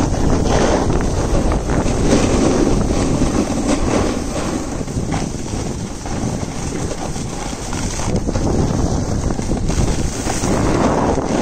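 Wind rushing over the microphone of a camera carried down a ski slope, with the scrape of snow sliding underfoot rising and falling in loudness.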